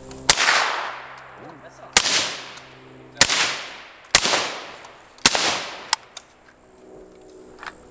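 Five suppressed 5.56 mm shots from a Bushmaster Arm Pistol with a Bushmaster Muta suppressor, fired one at a time about a second apart. Each shot is followed by a fading echo, and a small click comes after the last one.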